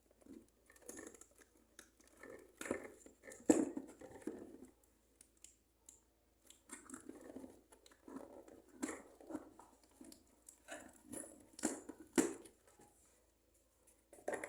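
Scratching, tearing and crinkling as tape is picked and pulled off a cardboard toy box with a small tool, with a few sharp clicks and knocks in between.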